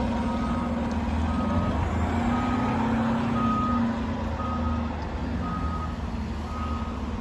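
A fire engine backing up: its engine runs steadily under the reverse alarm, which beeps about once a second.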